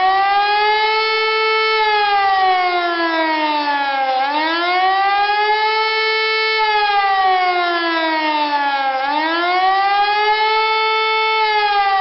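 Pneumatic high-performance civil-defence siren with a four-horn head sounding the German 'Warnung' signal: a loud wail that rises quickly and then falls slowly. The sweep repeats about every four and a half seconds, starting anew near 4 s and again near 9 s.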